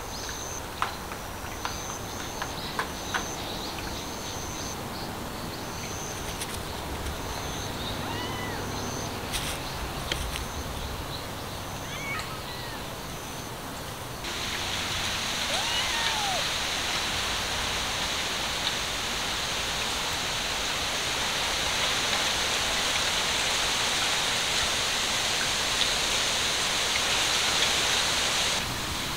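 Outdoor ambience: a high chirping pulse repeating a little more than once a second, with a few light clicks, gives way about halfway through to a steady hiss. A cat mews faintly now and then.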